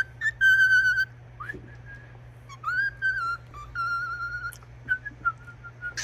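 Cockatiel whistling a tune: a string of clear, held notes joined by quick upward slides, with short breaks between phrases.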